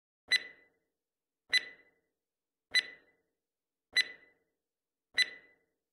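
Countdown timer sound effect: five short, clear pings a little over a second apart, counting down the seconds left to answer a quiz question.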